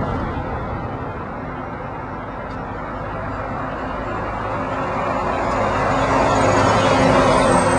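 A motor vehicle approaching on a road, its engine and tyre noise growing louder over the last couple of seconds.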